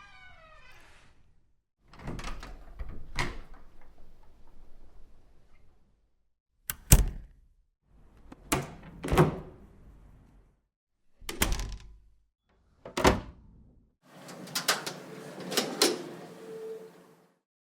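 A series of separate door sounds: doors opening and closing, with handle and latch clicks and shutting knocks. There are about six events with silence between them, the sharpest and loudest about seven seconds in.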